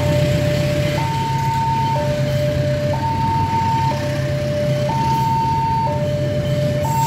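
Railway level-crossing alarm sounding its two-tone electronic warning, switching between a high and a low note about once a second, over the steady rumble of passenger train coaches rolling past on the track.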